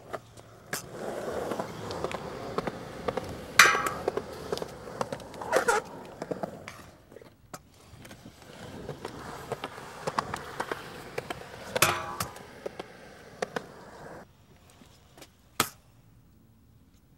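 Stunt scooter's small wheels rolling over concrete in two runs, with sharp clacks as the scooter hits the ground on tricks and landings. It goes much quieter near the end, with one last sharp clack.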